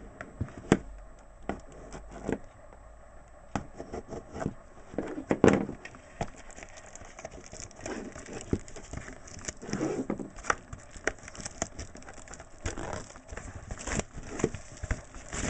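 Crinkling of a trading-card pack wrapper being opened and handled, with irregular sharp clicks and taps.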